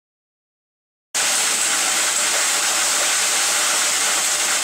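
Electric feed mill running, its spinning cutter smashing up dry feed as it drops from the hopper into the bucket: a steady loud hissing rush that cuts in abruptly about a second in.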